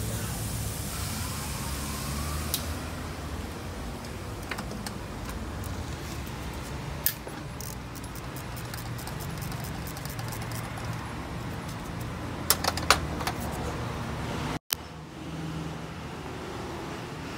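Metal hand tools clicking and clinking against a truck engine being dismantled: a few sharp clicks, with a quick cluster of them about two-thirds of the way through, over a steady low background rumble.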